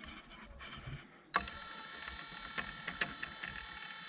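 Ford Ka windscreen-wiper motor switched on about a second in, running on its slow-speed winding and turning a bicycle chain sprocket through a plastic drive gear: a steady whine with a couple of clicks from the drive.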